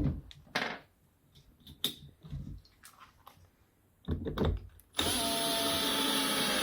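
Clicks and knocks of screws and parts being handled, then about five seconds in a cordless drill/driver runs steadily for about two seconds, driving a Torx screw into the chandelier.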